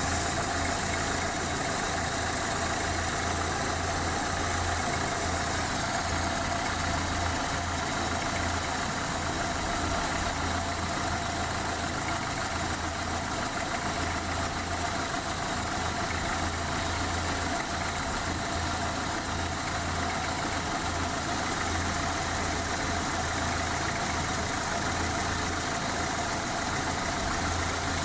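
Car engine idling steadily with a knock in it whose cause the owner cannot make out.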